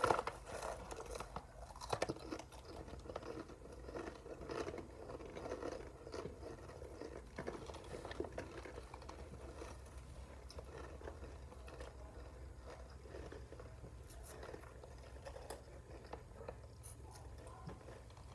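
Takis rolled tortilla chips being crunched and chewed with the mouth, a close, irregular run of small crunches that is loudest in the first few seconds and turns to softer chewing after.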